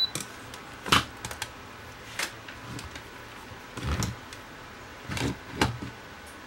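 Handling noises of a handheld multimeter and its test leads on a workbench: a short high beep at the start as a button on the meter is pressed, then about half a dozen separate clicks and clacks as the meter and probes are moved.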